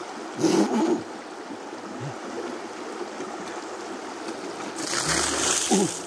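A creek running over rocks, with a short loud burst blown through a tuba about half a second in. Near the end, water gushes out of the tuba's upturned bell and splashes onto the rocks for about a second.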